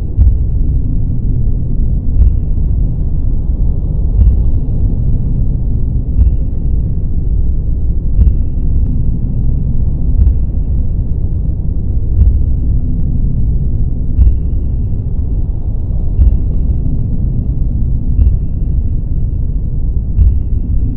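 Deep, steady rumbling noise of a space-themed white noise track, with a faint short high beep about every two seconds.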